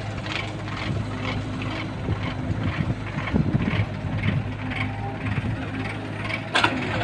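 Diesel engines of a Tata Hitachi excavator and a tractor running steadily, with a regular ticking about two or three times a second. Excavator loading soil, with a burst of louder clatter a little past the middle and a single sharp knock near the end.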